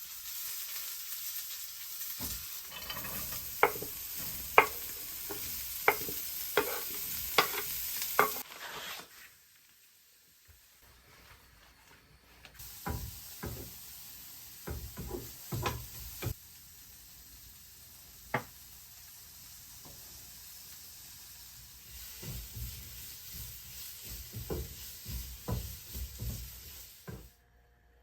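A steady sizzling hiss with a run of sharp taps and clatters. It drops to near silence for a few seconds about eight seconds in, then the taps and knocks come back over a quieter hiss.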